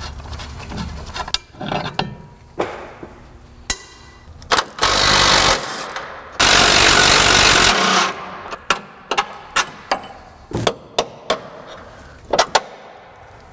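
Impact wrench running in two bursts a little over halfway through, the first under a second and the second about a second and a half, as it undoes a fastener on a pickup's front suspension. Sharp metal clanks and knocks from tools and parts come before and after.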